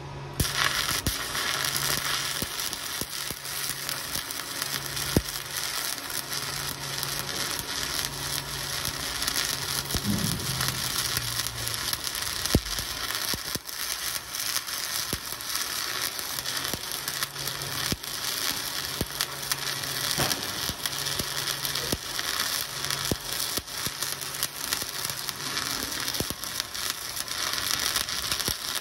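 Stick (SMAW) welding with a 1/8-inch 7018 rod running a vertical-up bead. The arc strikes about half a second in, then gives a steady crackle, kept as a tight, closed arc.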